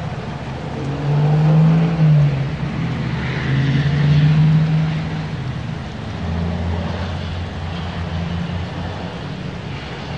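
Vehicle engines running with a low hum made of steady tones that shift in pitch, swelling louder twice, around one and four seconds in, then easing to a steadier drone.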